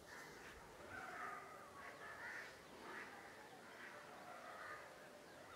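Crows cawing faintly, several short calls spread over a few seconds.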